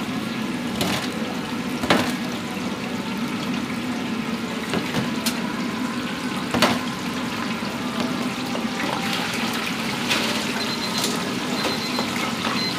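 Deep-fryer oil bubbling and hissing steadily over a constant low hum, with a few sharp clicks of metal on metal.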